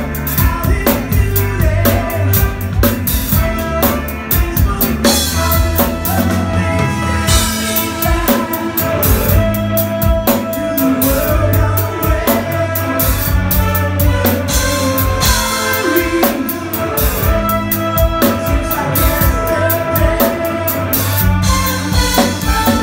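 Live rock band playing at full volume: a drum kit driving a steady beat under electric guitars, bass and a brass section.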